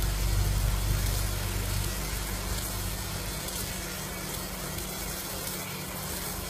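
Fiber laser marking machine running while it engraves a firearm receiver: a steady hiss with a low hum underneath, the hum heavier for the first two seconds and then easing off.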